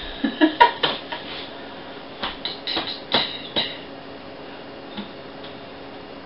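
A quick run of light clicks and clinks from small hard objects handled in the hands, in the first four seconds, with one faint tick about five seconds in; then only a steady low background hum.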